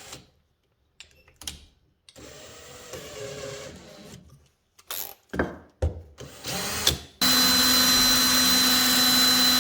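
Hand drill switched on about seven seconds in and running at a steady speed with a high whine, spinning a plexiglass disc on a bolt shaft so its edge can be sanded smooth. Before it starts, a few light handling knocks.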